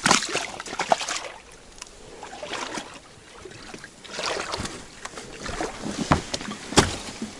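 Water splashing and knocking in a small rowboat, in irregular bursts, with one sharp knock about seven seconds in.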